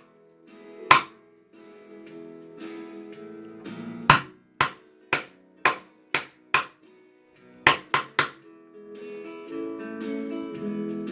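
Acoustic guitar playing: sharp, struck chords at an uneven pace with notes ringing between them, settling about nine seconds in into a fuller chord left ringing.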